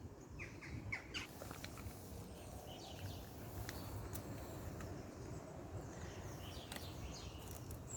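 Faint outdoor ambience with a steady low rumble, broken by a few short high chirps about half a second in and again around three seconds, and scattered light clicks.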